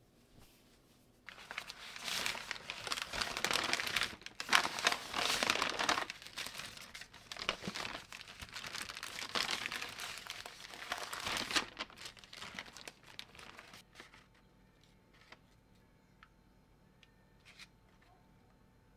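Brown kraft paper and white paper wrapping crinkling and rustling as it is unfolded by hand, starting about a second in and going on for some twelve seconds. After that come only a few faint ticks.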